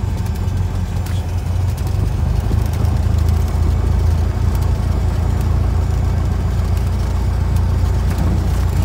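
Cessna 172SP's four-cylinder Lycoming IO-360 engine and propeller running at low taxi power, a steady low drone heard from inside the cabin. It gets slightly louder about two seconds in.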